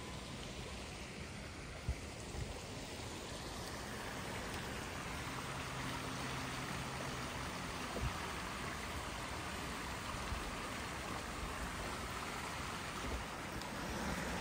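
Shallow creek rushing over rocks in a small riffle, a steady hiss of running water that grows a little louder a few seconds in.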